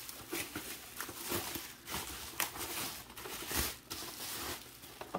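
Plastic packaging and bubble wrap crinkling and rustling as a boxed action figure is handled, with scattered small clicks and taps.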